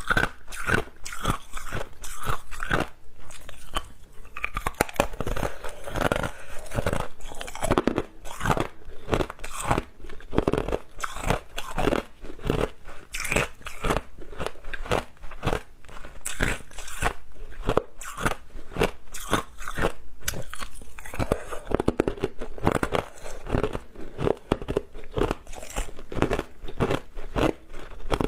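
Hard clear ice being bitten and chewed close to the microphone: a continuous run of sharp, irregular crunches and cracks, several a second, as the ice is broken up between the teeth.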